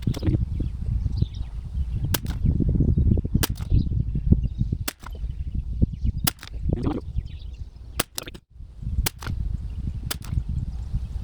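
Shots from an Anschutz 1761 .22 LR bolt-action rifle, a sharp crack every second or so, with a few coming close together about eight seconds in. Wind rumbles on the microphone throughout.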